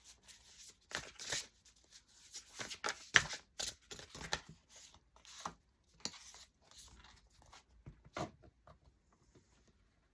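Oracle card deck being shuffled by hand: a run of quick, irregular papery slides and flicks of cards, thinning out over the last few seconds.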